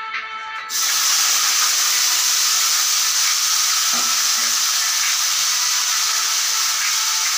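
Bhujia frying in hot oil in a steel kadhai: a loud, steady sizzle that starts sharply about a second in, replacing background music. A single knock is heard about halfway.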